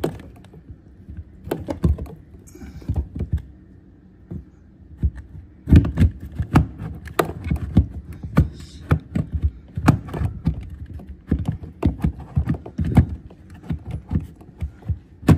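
Irregular plastic knocks and clicks as a new drain pump is pushed into a Bosch dishwasher's sump housing and twisted to lock its tab: a few knocks at first, then a dense run of clicks and knocks from about six seconds in.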